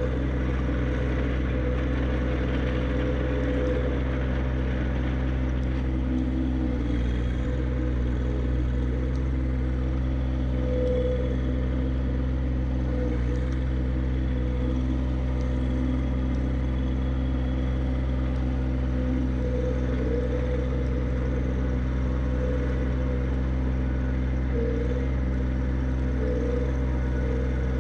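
John Deere 1025R subcompact tractor's three-cylinder diesel engine running steadily at constant speed while plowing snow.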